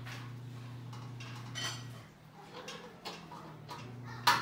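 Hardware and parts of a flat-pack computer table being handled during assembly: a few light clinks and taps, then one sharp, louder knock near the end, over a steady low hum that cuts out for a second or two in the middle.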